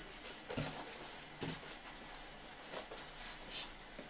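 Faint handling sounds of a large cardboard board-game box being opened: a few soft rustles and light bumps of the lid and contents.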